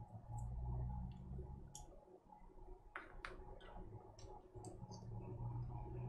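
Faint, scattered clicks of plastic keycaps being handled and pressed onto the keyboard's Cherry MX Brown switch stems, over a low steady hum.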